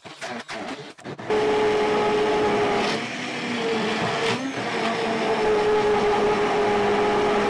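Hand-held immersion blender puréeing peeled tomatoes and chopped onion in a glass bowl. It starts with irregular knocks as the blade meets the whole tomatoes, then the motor runs at a steady whine whose pitch wavers briefly near the middle.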